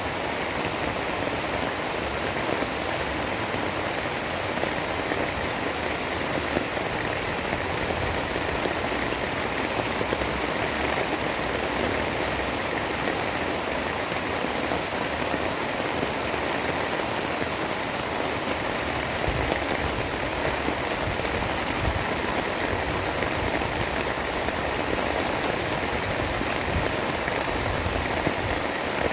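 Steady rain, an even hiss of falling water that keeps the same level throughout.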